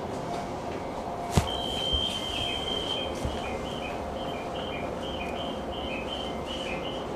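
JR East E131-1000 series electric train running, heard from the driver's cab: a steady rumble of wheels on rail with a faint motor hum, and a single sharp knock about a second and a half in. Over it, from about a second and a half in, comes one long high note and then a string of short high chirps alternating between two pitches.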